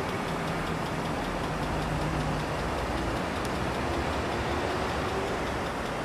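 Steady outdoor rumble of engine or traffic noise, with a low engine hum through the first couple of seconds.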